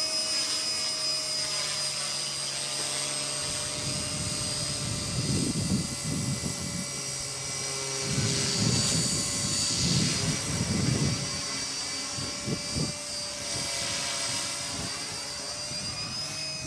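Align T-Rex 250 electric RC helicopter hovering and manoeuvring overhead: a steady high whine from its motor and spinning rotor. From about four seconds in, irregular low buffeting rises and falls beneath the whine, loudest in the middle.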